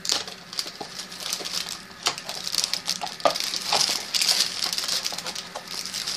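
Foil blind bag and small cardboard box of a Funko Mystery Mini being handled and opened: crinkling, rustling and irregular small clicks and taps.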